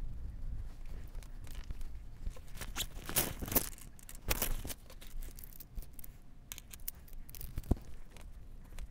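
Rustling and scraping as drawing materials are handled on the table. There are two louder rough rasps about three and four and a half seconds in, and a sharp tap near the end.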